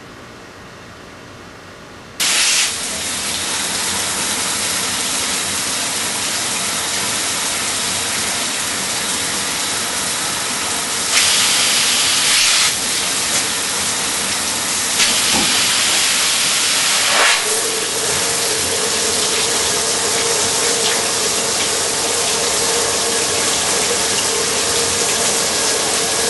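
Suction shower head spraying water: a steady loud hiss that starts suddenly about two seconds in, with a few brief louder surges. About two-thirds of the way through, a steady tone joins the hiss.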